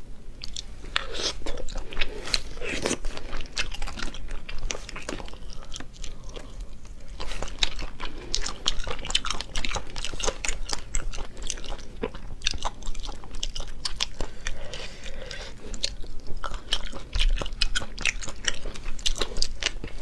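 Close-miked chewing of sea snail meat: a dense, irregular run of small wet clicks and smacks from the mouth.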